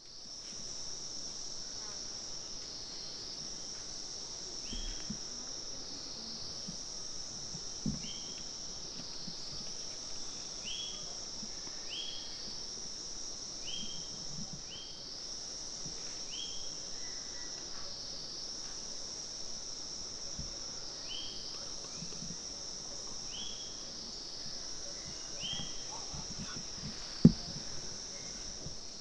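Steady high-pitched chorus of forest insects, gently pulsing, with short falling chirps repeating every second or two over it. One sharp knock sounds near the end.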